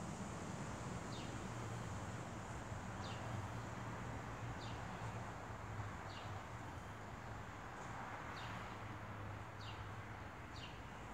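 A bird repeating a short, high, falling chirp about every one to two seconds, over a steady low background hum.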